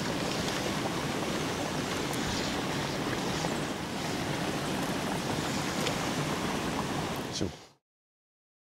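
Steady rushing outdoor background noise, like wind across the microphone, with no speech. Near the end a short sharp knock, then the sound cuts off to silence.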